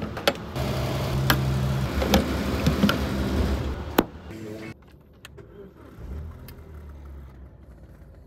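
Petrol pump forecourt sounds: the pump hums steadily while the fuel nozzle is handled and hung back in its holster with plastic clunks, and there is one sharp clack about four seconds in. After that comes a quieter car interior with a low engine rumble.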